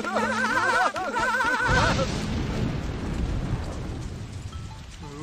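Two cartoon caveman voices whooping with a wavering, warbling yell. About two seconds in a thunderclap breaks in with a deep rumble, then a steady hiss of rain that slowly fades.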